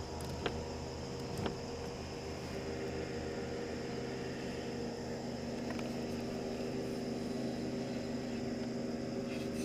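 Small boat motor running steadily, a hum with a few fixed tones that grows a little stronger about three seconds in. Two light clicks in the first two seconds.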